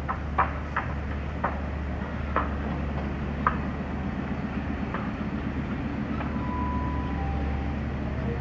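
Class 56 diesel locomotive running with a train of empty fly ash wagons: a steady low engine drone with sharp clicks at uneven intervals over the first five seconds. A brief two-note tone, the second note lower, comes about six seconds in.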